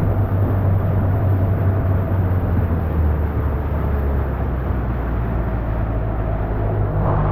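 A 16-foot jon boat's outboard motor running steadily under way, a low hum mixed with rushing wind and water noise.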